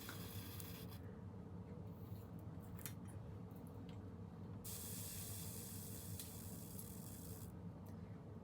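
Faint hiss of an aerosol hair spray, briefly at the start and again for about three seconds in the middle, each stopping sharply, over a steady low hum.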